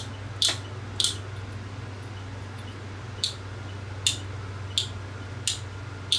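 Small sharp clicks from a lamp socket's turn-knob switch and its metal parts being worked by hand, about seven clicks at uneven spacing, over a steady low hum.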